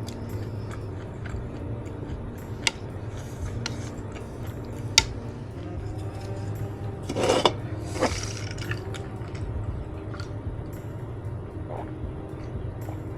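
Close-miked chewing of kimchi stew: soft wet mouth noises with scattered sharp clicks over a steady low hum, and a louder brief mouth noise about seven seconds in.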